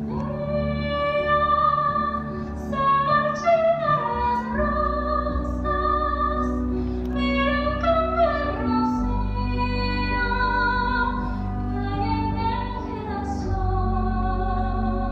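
A female voice sings a slow musical-theatre ballad, holding long notes with vibrato and gliding between them. Under it, a sustained instrumental accompaniment shifts to a new low chord every few seconds.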